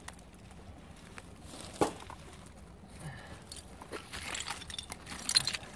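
A gloved hand digging through loose dirt, dead leaves and rusty scrap, with a sharp knock about two seconds in. Near the end comes a run of rustling and scraping with another sharp clink.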